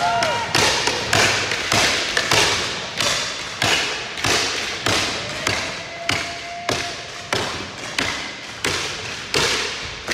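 A steady, regular series of sharp hits, about three every two seconds, each followed by a hissing ring that fades before the next.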